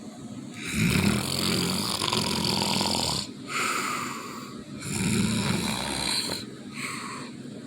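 Snoring: two long rattling snores, each followed by a shorter, higher whistling breath.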